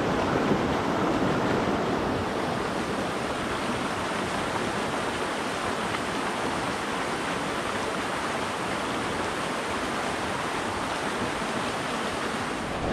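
Creek water rushing steadily over rocks in shallow riffles and a small cascade.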